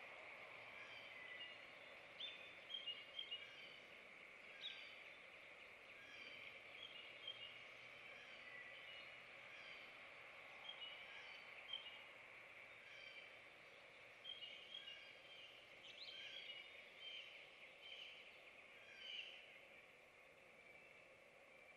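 Small songbirds chirping faintly outside, many short high notes scattered throughout, over a steady background hiss.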